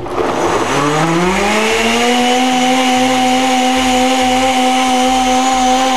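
Countertop blender motor starting up, its whine rising in pitch over about two seconds, then running steadily as it liquefies red bell pepper and garlic in water.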